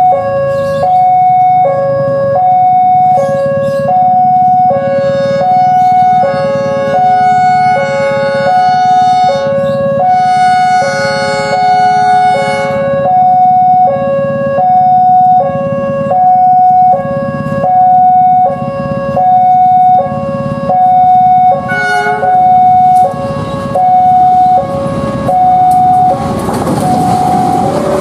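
Railway level-crossing warning alarm sounding a steady, loud alternating two-tone signal, high and low notes taking turns in a regular rhythm, as the crossing closes for an approaching train. Near the end the rumble of the arriving train rises underneath it.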